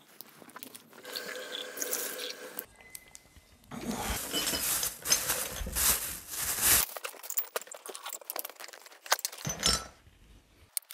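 Whisky poured from small sample bottles into tulip-shaped tasting glasses: a bottle's screw cap twisted open, then liquid pouring from about four to seven seconds in, with small sharp clicks of bottle and glass.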